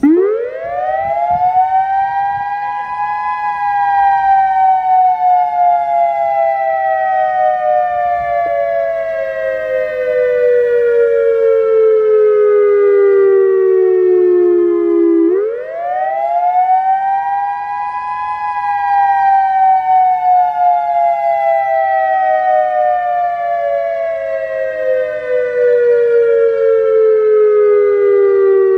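Federal Signal EOWS-1212 electronic outdoor warning siren switching on and sounding a wail on its test. The pitch climbs quickly over about three seconds, then sinks slowly for about twelve. It climbs again about fifteen seconds in and is falling once more near the end.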